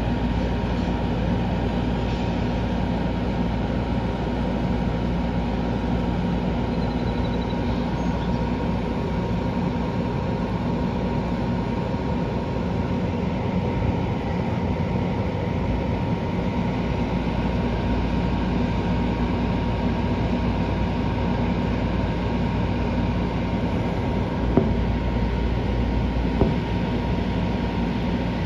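Steady, unchanging low rumble with a faint hum running through it, and two short clicks near the end.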